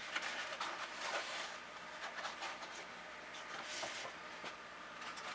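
Handling noises: soft rustles and light clicks and taps as chicken eggs are laid into an incubator, over a faint steady hum.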